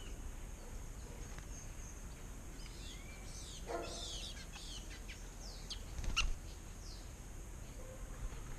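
Small songbirds giving short, high, down-slurred chirps, with a busier flurry of calls about four seconds in; a brief knock about six seconds in is the loudest moment.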